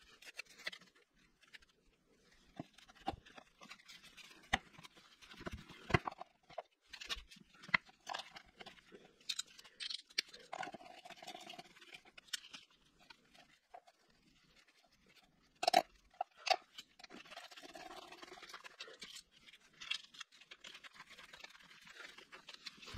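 Hand tools working at the bolts of a motorcycle's front sprocket cover: irregular clicks, light metal clinks and scraping, with a couple of sharper knocks about two-thirds of the way through.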